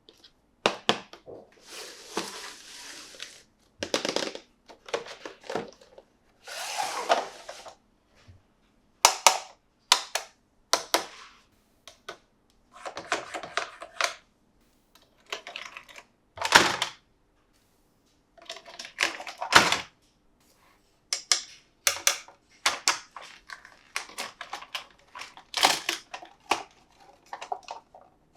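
Hard plastic toy playset parts and packaging being handled: many sharp clicks and taps at uneven intervals, with a few short stretches of rustling.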